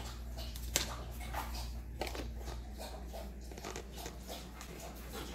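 Dogs moving about close by: faint scattered clicks and scuffs over a steady low hum, with one sharper click about a second in.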